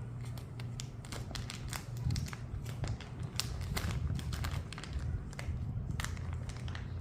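Packaging crinkling and crackling in a rapid run of small clicks as it is torn open and handled to pull a plush toy out, over a low rumble of handling.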